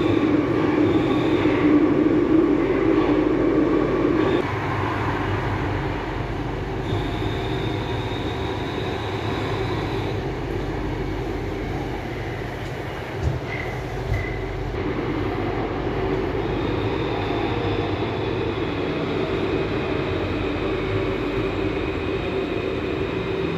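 Santiago Metro train running, heard from inside the carriage: a steady rumble with a humming tone. A louder, lower roar drops away about four seconds in, and two short knocks come about halfway through. The train reaches a station platform near the end.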